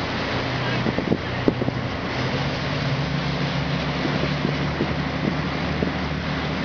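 Steady low engine drone under wind buffeting the microphone, with a couple of light knocks about a second in.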